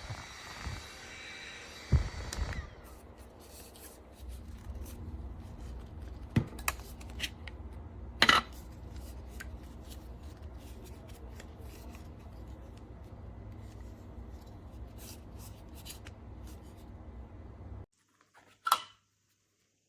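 Small electric fan running with a steady whine that stops with a knock about two seconds in. Then comes handling noise: rubbing, scraping and scattered clicks over a low rumble, which cuts off abruptly near the end, followed by one more click.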